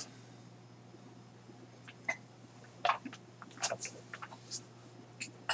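Faint computer mouse clicks, about a dozen scattered through the second half, selecting edges one after another, over a low steady electrical hum.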